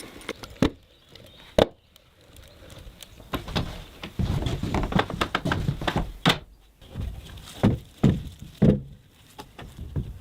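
Wooden knocks and thuds from hand construction work: sharp single knocks in the first two seconds and again about six seconds in, with a run of duller thuds in between.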